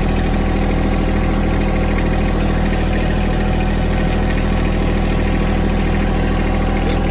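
Tractor engine running steadily and loud at a constant speed.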